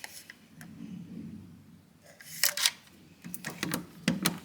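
A few sharp clicks and knocks, like a camera or phone being handled, the loudest pair about two and a half seconds in and a quicker run of them near the end.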